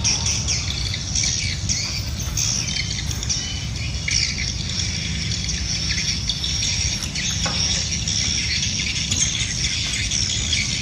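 Many small birds chirping and twittering continuously, with a steady low rumble underneath.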